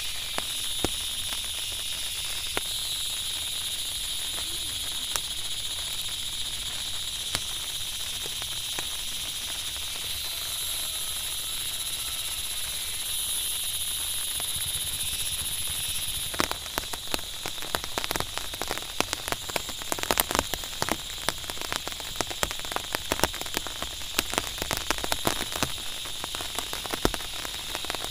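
Steady rain hiss with a constant high whine over it; about halfway through it changes to a close, crackling patter of raindrops.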